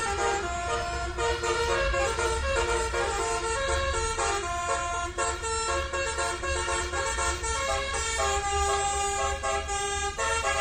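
Basuri telolet musical horn playing a melody through its horn trumpets: a run of held notes changing pitch every fraction of a second, over a low steady hum.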